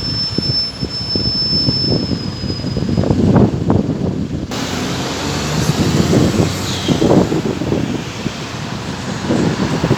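A bus running by at the roadside, with wind gusting on the microphone. A faint high whine fades out about two to three seconds in.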